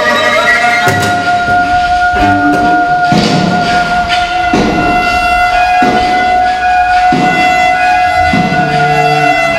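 Improvised experimental music: one long, steady high note sounds over rough, scratchy cello strokes that come about once a second.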